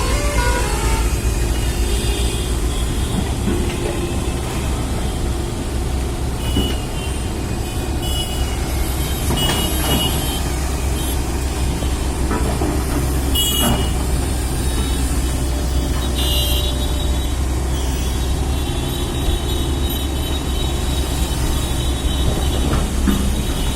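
A large construction machine's engine runs steadily with a heavy low rumble. Short high-pitched tones sound several times through it.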